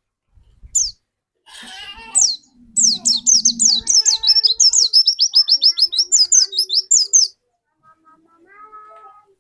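White-eye (pleci) singing: a couple of single high falling notes, then a fast chattering run of many quick high falling notes lasting about four seconds.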